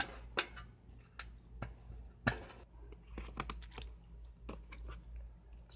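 Irregular clicks, taps and light clatter of a Torx screwdriver and small metal parts being handled while taking apart an Antminer S2 mining rig, over a steady low hum.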